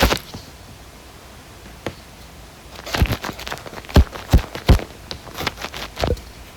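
A light-up plastic ear pick scraping and tapping right against an iPhone's microphone, close-up ear-cleaning ASMR scratching and crackling. A pause of about two and a half seconds with one soft click, then the scratching picks up again in quick, irregular strokes.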